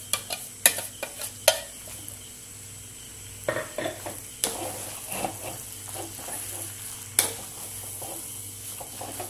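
A steel bowl tapped and scraped against the rim of a clay pot, followed by a wooden spoon stirring ground chicken into onions. Throughout there is a faint sizzle of the food frying in oil. The sharpest knocks come in the first second or so and once about seven seconds in.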